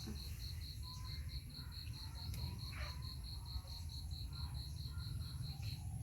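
A cricket chirping steadily in a fast, even rhythm of about four to five short high chirps a second, over a low steady rumble.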